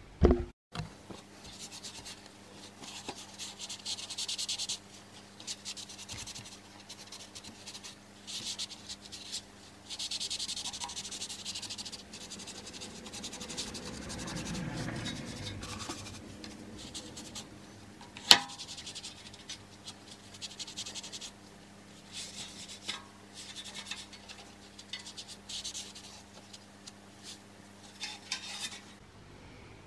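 A paper towel or rag wiping and scrubbing oven cleaner off the aluminium footpeg bracket and swingarm of a BMW K100 motorcycle, scratchy rubbing strokes in bursts of a few seconds. A low steady hum runs beneath, and a single sharp knock comes about eighteen seconds in.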